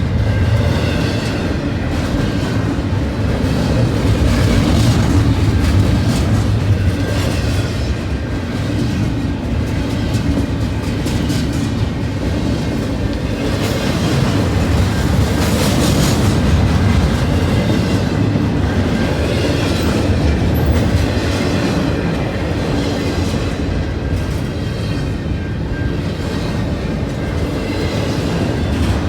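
CN freight train's intermodal cars rolling past: a steady rumble with repeated clacks of steel wheels over the rail joints.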